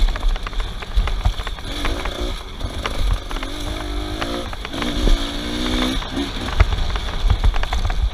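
Off-road vehicle engines revving up and down in several surges about a second long, with scattered sharp clicks and knocks over a constant low rumble.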